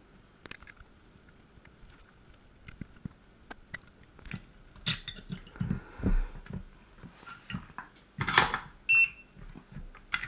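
Small clicks, taps and scrapes of tools against a smart plug's plastic case and circuit board as the board is desoldered and worked loose, with a louder scrape about eight seconds in and a brief high beep just after it.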